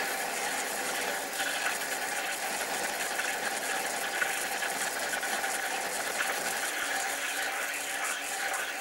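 Metal lathe running with a reamer cutting through the bore of a block as its tip breaks out the far side: a steady mechanical whir with fine chattering from the cut.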